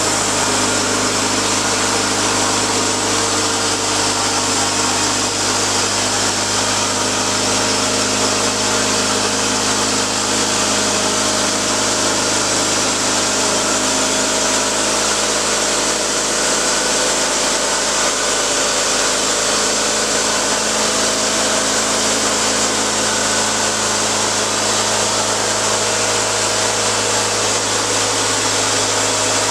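Portable sawmill running steadily, its engine and saw blade cutting through wood without pause.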